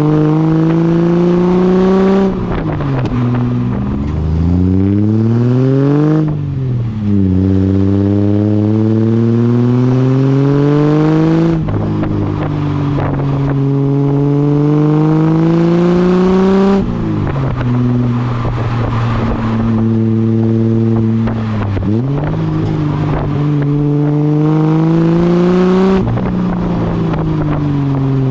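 Ford AU Falcon's 4.0-litre inline-six exhaust, through extractors and a 2.5-inch cat-back with a centre muffler, under hard acceleration. The revs climb, then drop sharply every few seconds as the manual gearbox shifts up, several times over.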